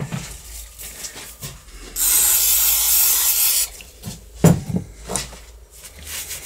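A steady spray hiss starts about two seconds in and lasts under two seconds while the lock faceplate is cleaned. A sharp knock follows, then a paper cloth rubs over the steel faceplate near the end.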